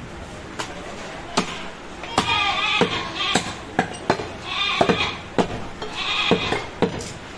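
Goat meat being chopped: about a dozen sharp blows, roughly one every half second, with goats bleating between and over them.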